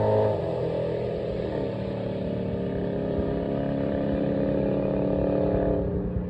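Drag car engine running steadily near idle, its note dipping slightly about two seconds in.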